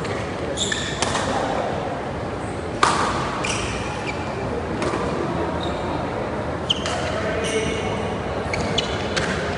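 Badminton rally: rackets striking the shuttlecock every couple of seconds, the sharpest hit about three seconds in, with court shoes squeaking on the floor over a steady hall murmur.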